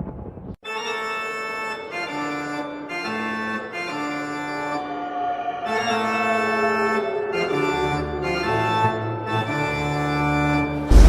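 Background music of held keyboard chords, organ-like in tone, changing every second or so; it starts after a brief break about half a second in.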